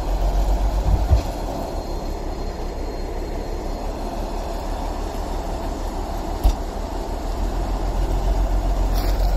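Crawler dozer's diesel engine running steadily at working load as it tows a dozer with a seized engine, with two brief thumps.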